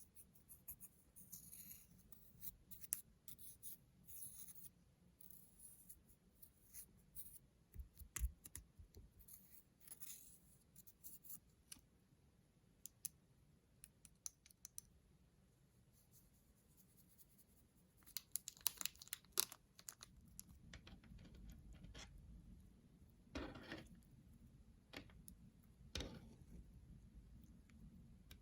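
Faint, scattered clicks, taps and short scrapes of makeup being scraped from its containers and worked into slime with small tools. There is a denser run of clicks about two-thirds of the way through, and two longer scrapes near the end.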